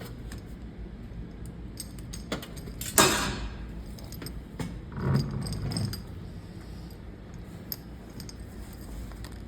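Alligator clips and test leads being handled and clipped onto metal parts of a vacuum system: scattered small metallic clicks and clinks, with one louder clank about three seconds in.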